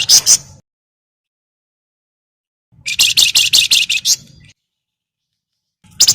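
Wergan Jawa (Javan fulvetta, sold as 'flamboyan') giving its chattering call ('crecetan'): quick runs of about eight to ten sharp, high notes. The first run ends about half a second in, a second lasts about a second and a half in the middle, and a third starts near the end.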